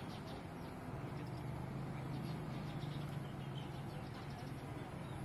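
Quiet outdoor ambience: faint scattered bird chirps over a steady low hum that comes in about a second in.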